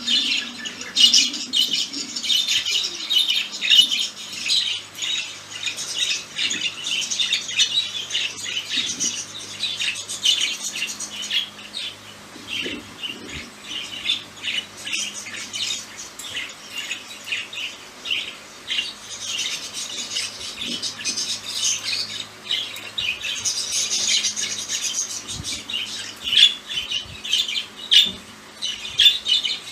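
Pet budgerigars chattering continuously: a dense stream of fast warbling chirps and squawks.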